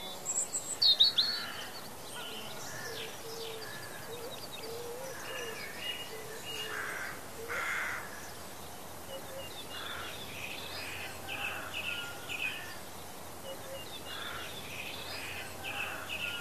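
Several birds chirping and calling over a faint steady background: many short chirps and whistled calls, with a louder flurry about a second in.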